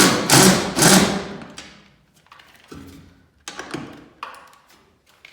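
Cordless impact driver firing in three short bursts at the start, tightening loosened bolts on garage door hardware, followed by a few lighter knocks.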